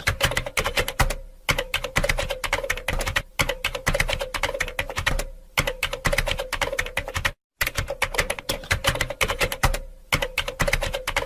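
Typewriter sound effect: rapid key strikes clattering in quick runs, broken by short pauses.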